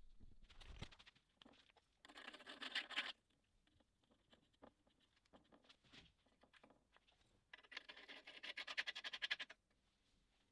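Handling and assembly of a laser engraver's aluminium frame: two bursts of rapid fine rasping clicks, the first about a second long and the second about two seconds near the end, with light taps and clicks between.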